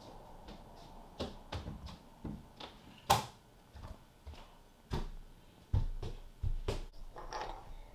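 Steel tweezer tips scraping old glue out of the crystal groove of a silver watch bezel: a string of small, irregular scratches and clicks, the sharpest about three seconds in. The glue is left from a plexi crystal that had been glued in.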